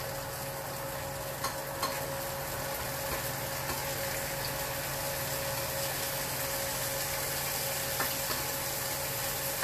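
Asparagus and salmon fillets frying in two pans on a gas stove: a steady sizzle, with a steady low hum underneath and a few faint clicks.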